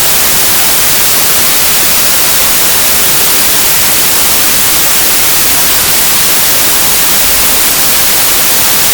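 Loud, steady hiss like static, even and unchanging throughout.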